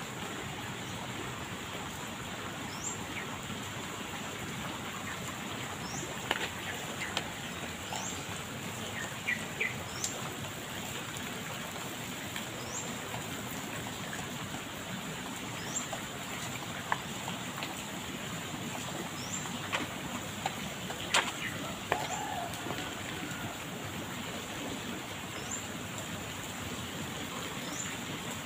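Steady rain falling on water, leaves and pavement, making an even hiss. Over it a bird repeats a short, high, rising chirp about every second or two, and a few sharp drips or taps break through now and then.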